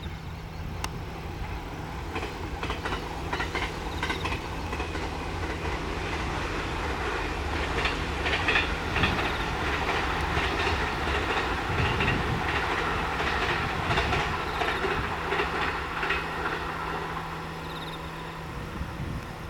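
A train passing on the line, its wheels clacking over the rail joints in rapid runs. The sound builds to its loudest around the middle and fades toward the end.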